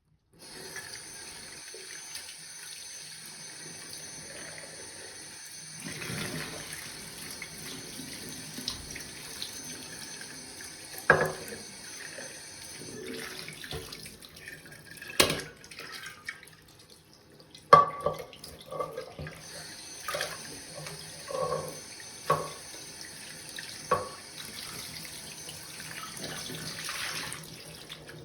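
Tap water running into a sink, a steady hiss, with a string of sharp knocks and clinks as things are handled under the stream, most of them in the second half.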